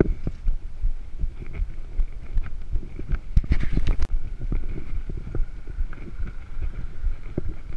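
Mountain bike rolling over a rough concrete road: a steady low rumble with frequent rattles and knocks from the bike, and a short burst of sharper clicks about three and a half seconds in.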